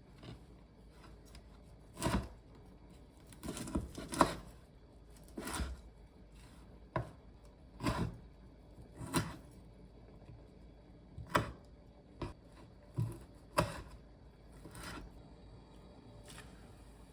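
Scattered knocks and clicks of kitchen work, utensils and dishes being handled and set down, about one every second or two in a small room.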